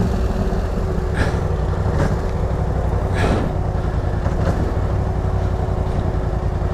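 Polaris Scrambler XP 1000 ATV's twin-cylinder engine running steadily at low speed as the quad crawls over a muddy trail, with a few short, sharper noises over it about a second apart.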